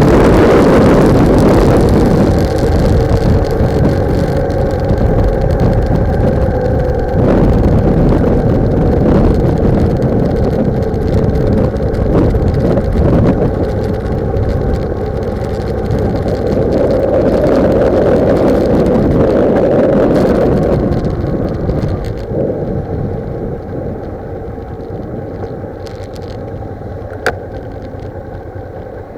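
Heavy wind buffeting on a motorcycle-mounted microphone, mixed with the motorcycle's engine and road noise while riding. It eases off over the last several seconds, with one sharp click near the end.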